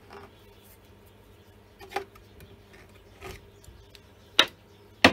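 A few separate sharp clicks and knocks of tools and chainsaw parts being handled on a workbench, spaced about a second apart, the loudest near the end.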